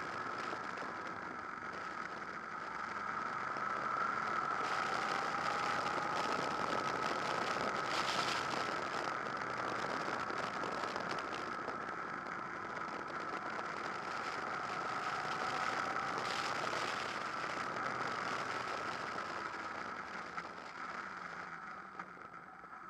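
Honda VFR800 VTEC's V4 engine running as the motorcycle rides along, heard from a bike-mounted camera as a steady drone with a high hum; the sound tapers off over the last few seconds.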